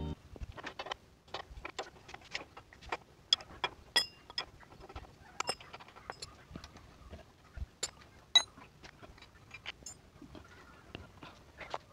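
Wrench clicking and clinking on the rear axle nut of a Honda XR150L motorcycle as the axle is worked loose for removal: irregular sharp metallic ticks, two of them louder with a brief ring, about four and eight seconds in.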